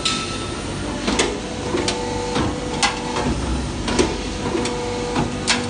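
CNC tube punching machine punching holes in metal tube: about ten sharp, irregularly spaced punch strokes over a steady machine hum, with a humming tone that comes and goes between strokes as the machine works.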